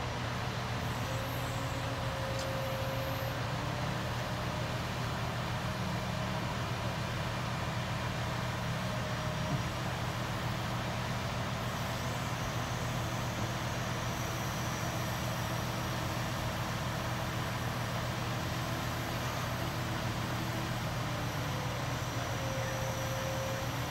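Mobile crane's diesel engine running steadily under load, a low even drone, with one faint click about halfway through.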